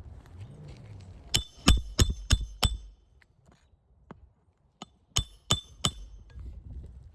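Hammer driving roofing nails into an asphalt shingle: five quick ringing blows, then after a pause three more.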